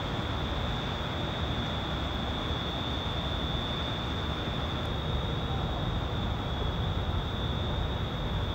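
Steady low ambient rumble and hiss with a thin, steady high-pitched whine over it.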